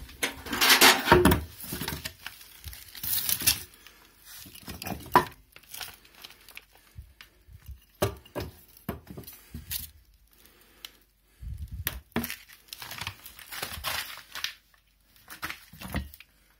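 Handling noise from hands moving and gripping moped parts close to the microphone: irregular rustling and scraping with knocks and light clinks. It is busiest in the first couple of seconds, with a sharp knock about five seconds in and further bursts later on.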